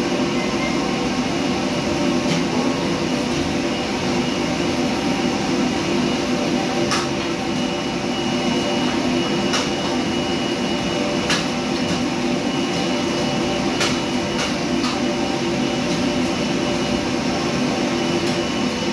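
Steady whirring rush of a commercial kitchen extraction hood and gas wok burner running, with occasional sharp metallic clinks of a ladle against the wok as food is stir-fried.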